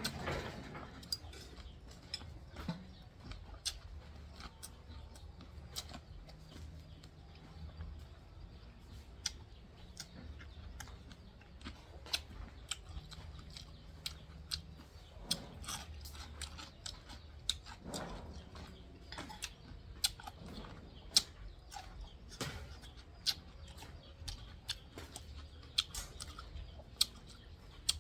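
A person eating and chewing, with scattered short clicks and taps at irregular intervals throughout.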